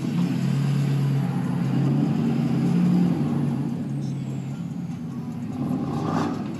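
A pickup truck's engine running steadily as the truck rolls slowly, heard through the open cab window. Near the end there is a brief rush of noise.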